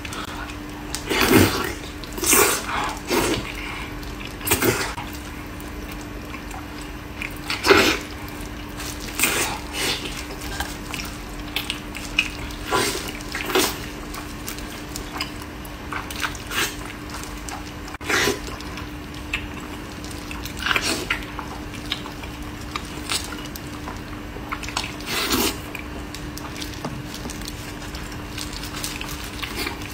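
Close-miked eating of braised pork knuckle: irregular smacking bites and chewing of the sticky skin and meat, one every second or two, over a steady low hum.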